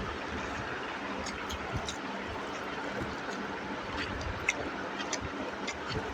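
Eating sounds: chewing and wet mouth smacks over rice and chicken curry, heard as scattered soft clicks, the sharpest about four and a half seconds in, over a steady background hum.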